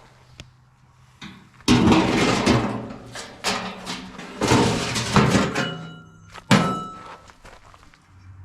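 A run of irregular knocks, clatter and thuds, ending in one sharp thud, over a faint low steady hum.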